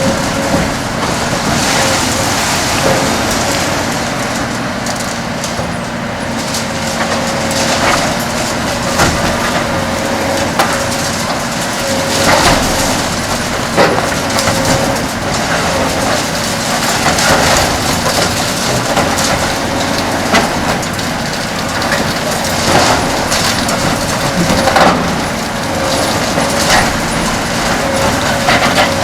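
A Kobelco SK 500LC-10 demolition excavator's six-cylinder Hino diesel and hydraulics run with a steady hum while a Verachtert VHC 60 concrete shear crushes concrete. Irregular sharp cracks and crunches of breaking concrete come every second or two.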